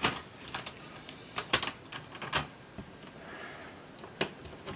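Sharp, irregular clicks and taps of a old Toshiba laptop's plastic case and cover being worked loose and handled, about half a dozen, the loudest about one and a half seconds in.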